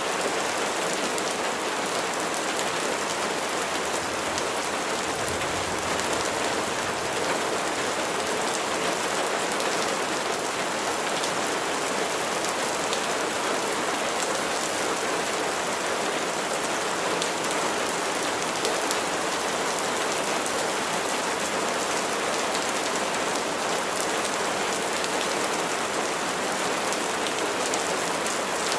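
Steady rain falling: a dense, even patter of drops that keeps up at the same level without a break.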